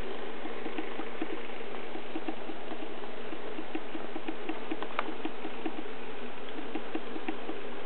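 N scale model freight train running on code 40 track: a steady whir with rapid, regular clicking, about four clicks a second, and one sharper click about five seconds in.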